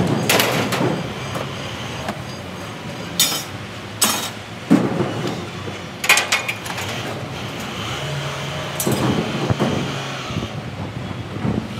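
Pieces of scrap metal thrown out of a ute tray, clanging and clattering onto a concrete floor, about six separate crashes.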